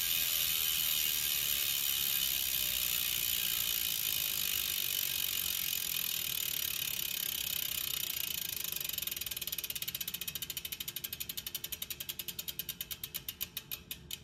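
Industry Nine 101 rear hub freewheeling, its six-pawl, 90-engagement-point ratchet buzzing as the spun wheel coasts down. The buzz is high and dense and slowly fades, then from about nine seconds in it breaks into separate clicks that spread further apart and stop near the end.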